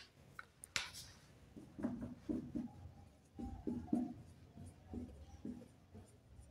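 Faint sounds of writing: a string of short strokes, with a sharp click about a second in.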